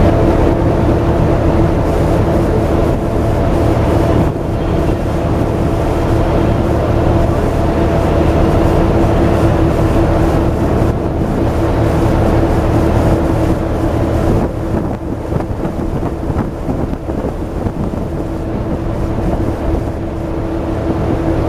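A boat's engine running steadily while underway: a constant low hum with one held tone, dipping slightly in level about two-thirds of the way through, with wind blowing on the microphone.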